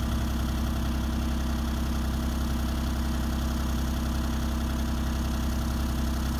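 Mini excavator's engine idling steadily, with a low, even hum and no change in speed.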